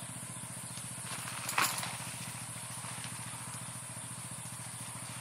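A motor idling steadily with an even, pulsing low hum. A single short knock comes about a second and a half in.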